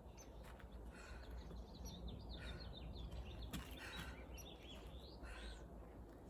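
Small birds chirping in a quick run of short calls, mostly in the middle, over a low wind rumble on the microphone, with a few sharp knocks.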